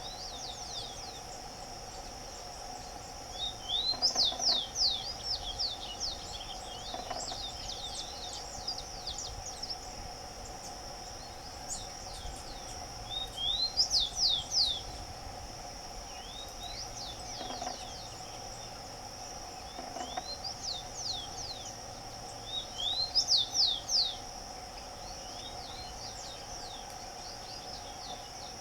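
Rufous-collared sparrow singing: four short song bouts of quick, high, downslurred whistled notes, spaced several seconds apart, over a steady high-pitched drone.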